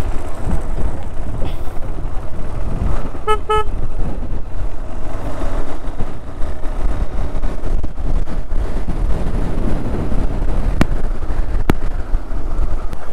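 Motorcycle running at low speed, with a heavy wind rumble on the rider's microphone. About three seconds in, a short horn toot of a few quick beeps.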